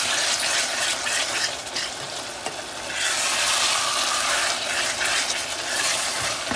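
Chopped onions and tomatoes sizzling as they fry in oil in a stainless steel saucepan, stirred with a wooden spatula. The sizzle softens for about a second and a half, starting about a second and a half in, then comes back full.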